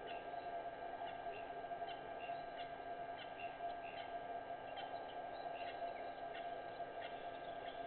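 Steady electrical hum with faint hiss, with many short, high chirps scattered irregularly over it.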